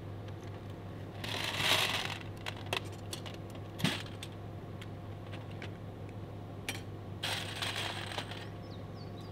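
Metallic clicks and clinks with two bursts of rustling, from a steel ammo can being handled right beside the microphone, over a steady low hum. No shots are fired.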